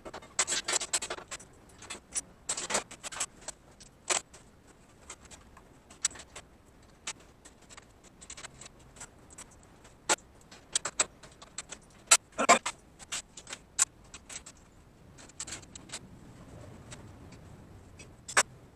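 Metal clinks, clanks and short rattles from handling hardware and a steel bracket against a steel cart frame: a jingling cluster near the start, then scattered single knocks, the sharpest about two-thirds of the way through.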